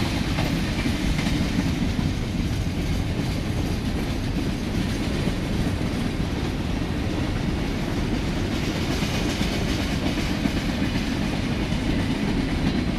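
Open hopper cars of a freight train rolling past: a steady, even sound of steel wheels on rail, strongest in the low range.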